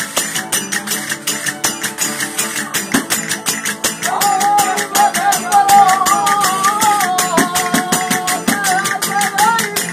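A panda de verdiales playing live: strummed Spanish guitars over fast, even tambourine and cymbal beats, several to the second. About four seconds in, a long, wavering high melody line comes in above them.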